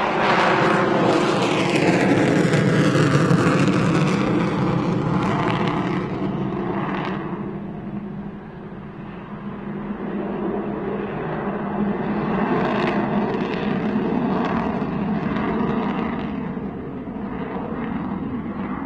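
Avro Vulcan bomber's four Rolls-Royce Olympus jet engines on a display pass: a loud jet rumble whose pitch falls as the aircraft goes over. It dips, then swells again with a crackle for a few seconds before fading as it flies away.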